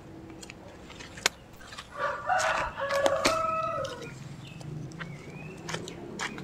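A rooster crows once, a call of about two seconds starting about two seconds in, with a few sharp clicks around it.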